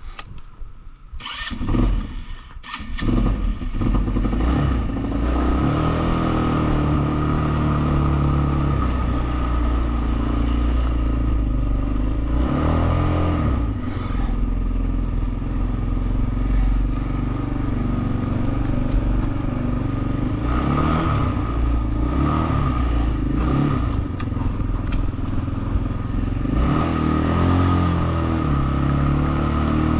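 ATV engine running under way, its revs rising and falling several times. The first couple of seconds hold only quieter clicks and knocks before the engine comes up loud.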